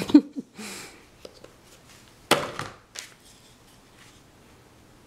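Sharp knocks and short scraping clatter from handling a plastic paint bottle and a wooden-handled brush at a plastic paint tray, with the loudest knock a little over two seconds in.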